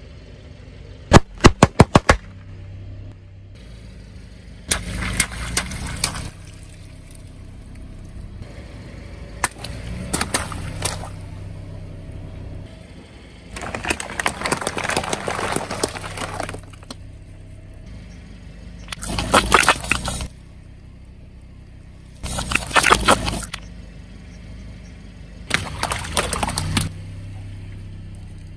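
A car tyre slowly crushing water balloons and small plastic bottles. About a second in comes a rapid string of about five sharp pops. After that, a burst of crunching, popping and splashing comes every few seconds, over the car's steady low engine hum.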